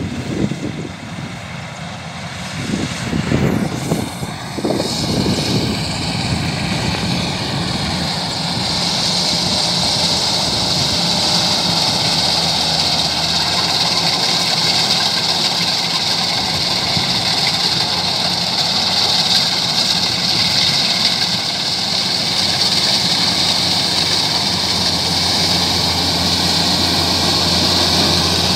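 Kubota DC-93 rice combine harvester running under load as it cuts standing rice, its diesel engine and threshing machinery making a steady mechanical drone. It grows louder over the first few seconds as the machine comes close, then holds steady, with a high hiss joining in after several seconds.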